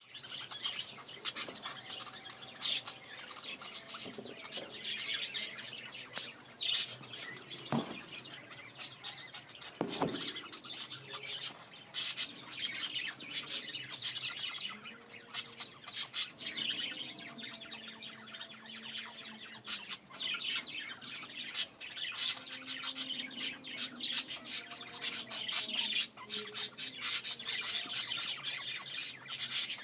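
Budgerigars chattering and warbling: a rapid, unbroken run of short, sharp chirps and clicks, which the uploader calls a mating call.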